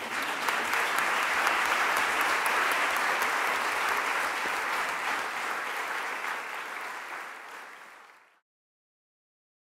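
Audience applauding, a dense, steady clapping that fades out and cuts off about eight seconds in.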